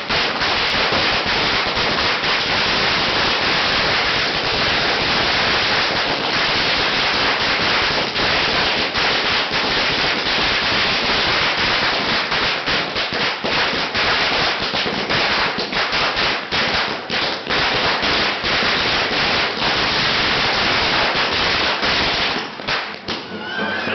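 Firecrackers going off in a dense, unbroken crackle of rapid pops for over twenty seconds, thinning out near the end.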